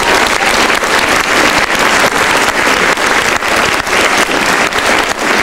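Theatre audience applauding: a dense, steady clatter of many hands clapping.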